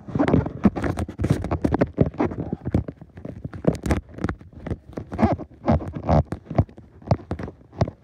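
Handling noise from a phone held and carried close to its microphone: a quick, irregular run of rubs, scuffs and taps.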